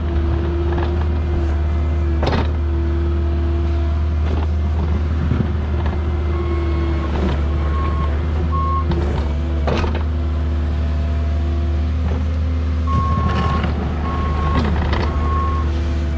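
A heavy vehicle's engine running steadily, with a few clicks and knocks. Two runs of short, high beeps sound, about six seconds in and again about thirteen seconds in.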